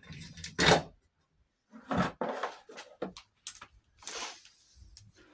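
Several short clunks and scraping rustles of objects being handled and set down, spaced about a second apart.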